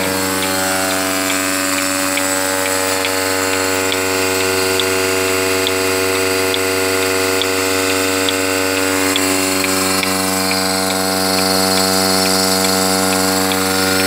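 Portable milking machine's electric vacuum pump running steadily with a droning hum while milking is under way, with a regular light ticking about twice a second. The hum deepens a little and grows slightly louder about nine seconds in.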